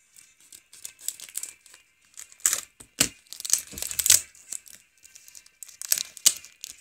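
A trading card booster pack's foil wrapper being torn open and crinkled by hand: short rustles and sharp tearing crackles, bunched together about two to four seconds in, with two more near the end.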